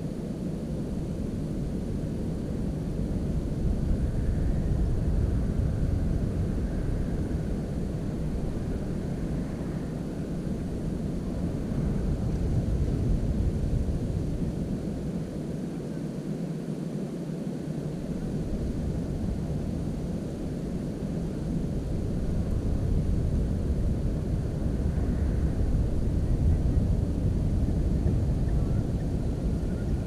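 Low rumbling noise from wind buffeting the camera's microphone, swelling and easing slowly.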